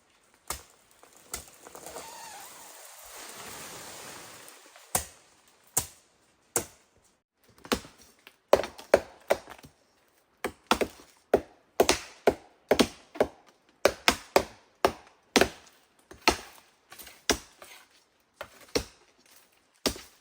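Repeated chopping blows of a blade into wood, a few single strokes at first and then quicker irregular runs of strokes from about the middle on. A few seconds of rustling come near the start.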